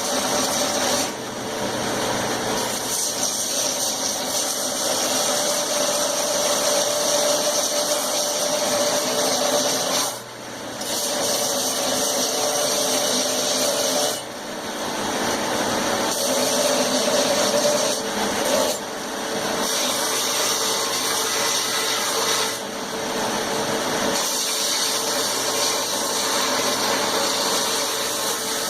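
Grinder running while a forged railroad-spike blade is rough-ground against it: a steady grinding hiss over the motor's hum. The sound dips briefly about five times, then picks up again.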